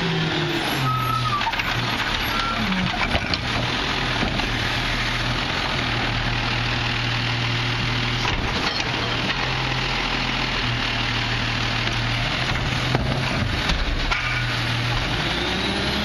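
Garbage truck's engine running under the hydraulic load of a McNeilus Autoreach automated side-loader arm lifting and dumping a wheeled cart. The engine note drops about a second in and climbs again near the end, with a few sharp clunks as the cart is handled.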